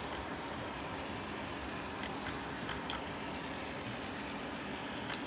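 O gauge model freight train rolling on three-rail track: a steady rumble of wheels and cars, with a few sharp clicks around the middle and one near the end.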